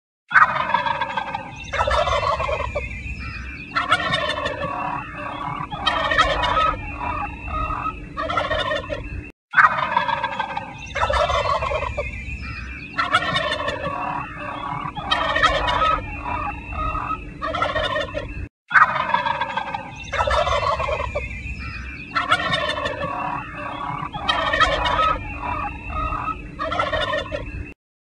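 Turkey gobbling, several rapid warbling gobbles in a row. The stretch is about nine seconds long and is looped three times, with a brief break between passes.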